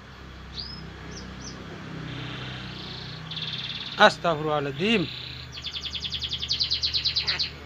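Black-capped lory chirping, then mimicking a short spoken phrase about four seconds in. It follows this with a fast, even rattling chatter of about nine pulses a second.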